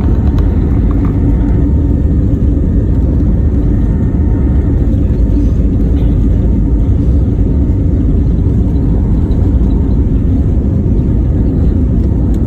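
Steady low rumble of an Airbus A320neo's jet engines and rushing air, heard from inside the passenger cabin during takeoff.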